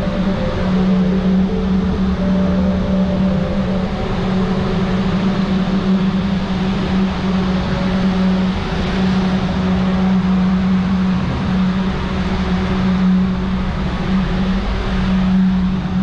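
Electric ventilation fans of a hay-drying system running: a steady, loud hum over a constant rush of moving air.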